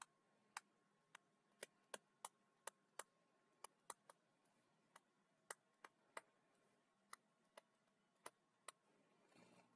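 Faint, irregular clicks of a stylus tip tapping a tablet screen during handwriting, about two a second.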